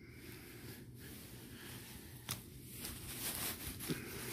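Handling noise: faint rustling of a coin's plastic sleeve being moved, with two light clicks, the first a little past two seconds in and the second near the end.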